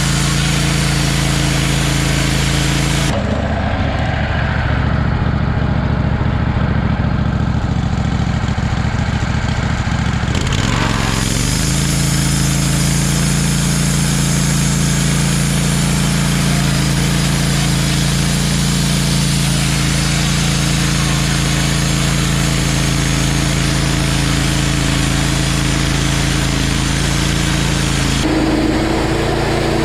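Wood-Mizer LT15 portable bandsaw mill running, its engine steady and its band blade cutting through a pine log with a hiss. For about seven seconds early on the hiss drops away and the engine note changes, then the cutting resumes.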